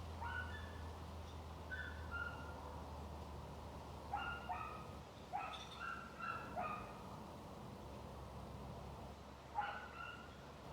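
A dog barking, short separate barks in small bursts, with a low steady hum that fades out about halfway through.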